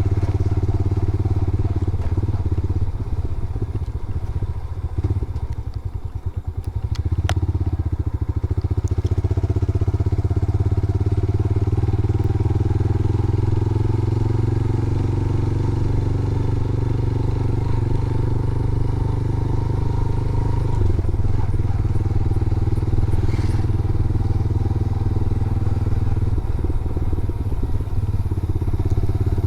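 Motorcycle engine running while being ridden, a steady hum. Around five seconds in it eases off to a slower, pulsing beat for a couple of seconds, then picks up again.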